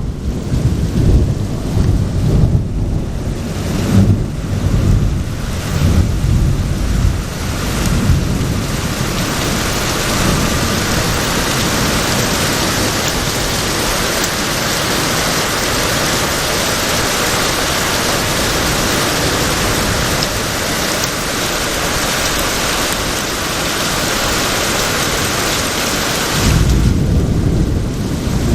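Thunderstorm from a tropical storm: thunder rolls in low surges over steady heavy rain, the rain hiss alone carries the middle, and another rumble of thunder comes in near the end.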